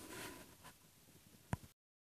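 Mostly quiet, faint noise fading away, then a single sharp click about a second and a half in, followed by a short dead silence where the recording cuts.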